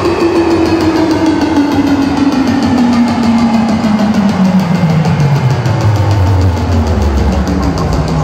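Loud electronic dance music from a DJ set over a big festival PA, heard from within the crowd. A tone slides steadily down in pitch over several seconds above rapid drum hits, and heavy deep bass comes in near the end.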